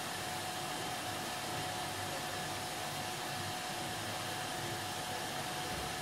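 Hospital autoclave steriliser running: a steady, even hiss with a faint constant tone above it.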